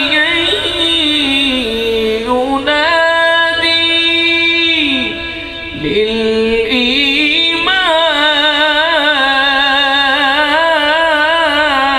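A man reciting the Quran in the melodic tajweed style, holding long, ornamented notes with a wavering vibrato. The pitch falls, then rises and holds, then after a short breath about halfway it climbs higher and wavers to the end.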